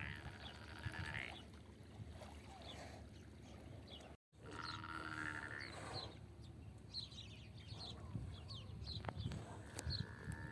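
Two drawn-out bleating calls from a farm animal, about four seconds apart, with small birds chirping throughout.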